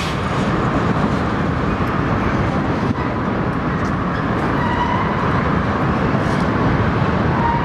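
Freight train of shipping containers rolling across a steel truss railroad bridge: a steady rumble of wheels on rails, with a faint thin squeal around the middle and again near the end.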